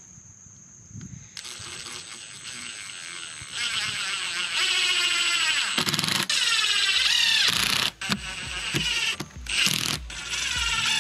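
Makita cordless impact driver driving screws into the painted wooden boards of a swing bench. It runs in several bursts whose pitch rises and falls as the trigger is worked: one long run, then shorter ones with brief stops between them.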